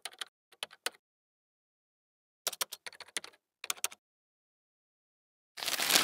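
Keyboard typing clicks, a sound effect coming in three quick runs, as credit text is typed on. Near the end a brief, louder rustle of paper being crumpled.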